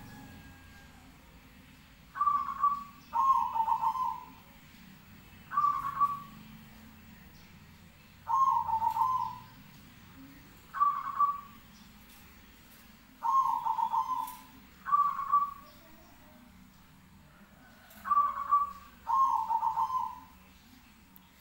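Zebra dove (perkutut) cooing: nine rolling, trilled coo phrases, some short and some longer, repeated every one to three seconds.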